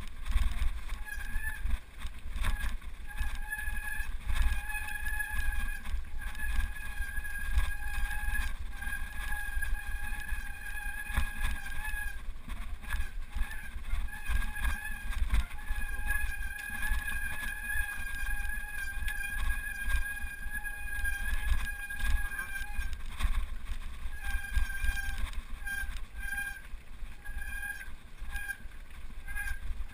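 Riding over a loose gravel mountain track: steady low rumble and wind buffeting on the microphone. Over it runs a high squeal that breaks off a couple of times and comes in short pulses near the end.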